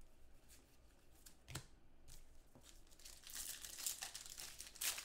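Faint crinkling and rustling of trading-card pack wrappers and cards being handled, with a light click about a second and a half in. The rustling gets busier over the last two seconds.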